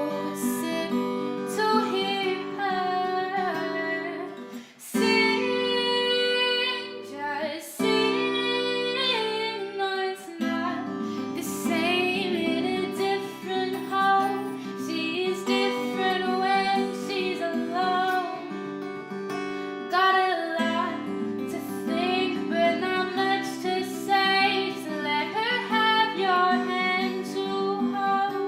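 A woman singing over strummed acoustic guitar chords.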